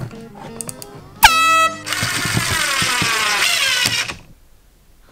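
A canned air horn gives one short, very loud blast about a second in. It is followed by about two seconds of loud rushing noise with a slowly falling pitch that fades out.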